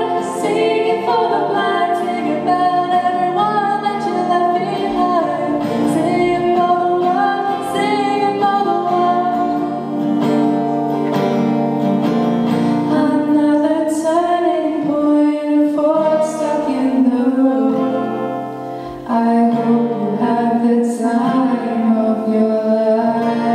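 Singing with guitar accompaniment: a song with a sustained melodic vocal line over plucked guitar.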